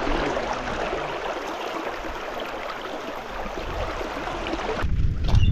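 Steady rush of flowing river water, an even hiss. Near the end it cuts off suddenly and a low rumble takes over.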